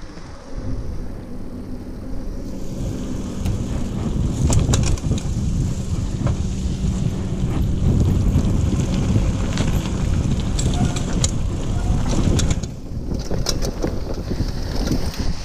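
Mountain bike riding over a dirt trail: a steady rumble of tyres and wind on the microphone, with the bike clattering and rattling over bumps in several bursts.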